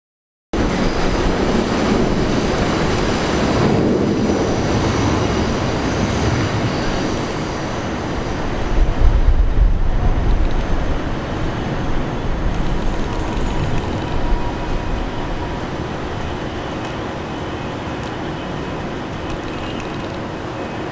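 R62A subway train running away on an elevated steel structure, a steady rumble of wheels on the rails that swells about nine seconds in and then slowly fades.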